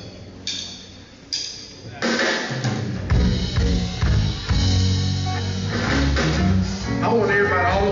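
Live gospel band of drum kit, electric bass, electric guitars and keyboard: a few short ringing strikes, then about two seconds in the full band starts playing a loud, driving groove with kick drum and bass.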